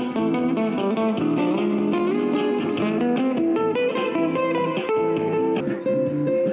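Guitar music: a picked melody of clear single notes over a steady pulse.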